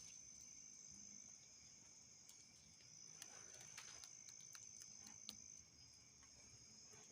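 Faint, steady high-pitched chirring of night insects, likely crickets, with a few faint ticks.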